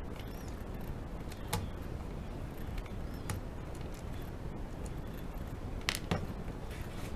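A few small, sharp clicks and taps from handling objects, spaced a second or two apart, over a steady low hum.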